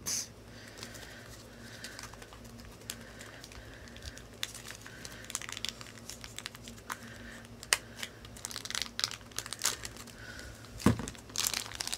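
Thin plastic toy packets being crumpled and torn open by hand: a run of crinkling and crackling, with a louder handling bump near the end.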